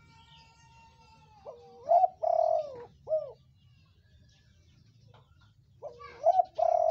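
Spotted dove cooing: a three-note coo phrase beginning about a second and a half in, its middle note the loudest, and the same phrase starting again near the end.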